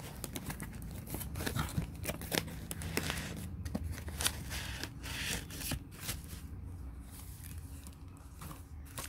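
Cardboard box flaps and foam packing sleeves being handled: irregular scraping, rustling and light knocks, with a plastic document sleeve crinkling.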